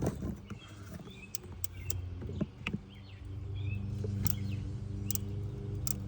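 Scattered sharp clicks of a ratcheting box-end wrench being worked, over a steady low hum that grows louder about halfway through.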